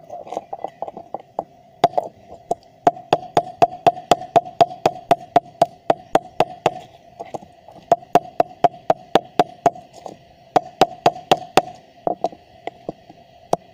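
Hammer blows on an epoxy-encased transformer block, a rapid run of sharp knocks about four a second with short pauses, knocking off the epoxy and loosening the steel laminations. A steady ringing tone sits underneath.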